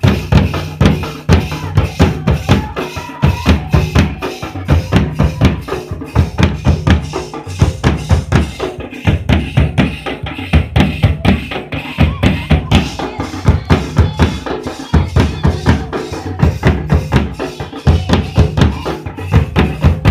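Large hand-played folk drums beaten in a fast, steady rhythm of about four strokes a second, with a heavy low boom to each stroke.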